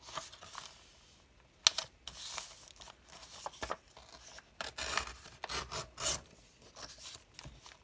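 Sheets of paper rustling and sliding against each other as pages are handled and stacked, with a sharp tap about one and a half seconds in. Near the end comes a longer rasping stretch of paper being torn along a wooden ruler.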